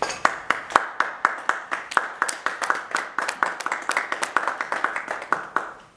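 A small audience applauding, the individual claps clearly separate, starting all at once and fading out near the end.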